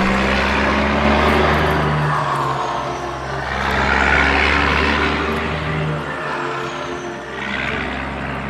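Large truck engine running with a steady low drone. A hissing rush over it swells and fades twice and then dies away near the end.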